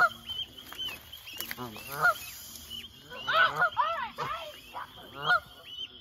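An agitated goose calling in short, repeated honks, the calls of a parent defending its trapped gosling, loudest around three and a half seconds in. Quick, high, falling peeps come over and over throughout.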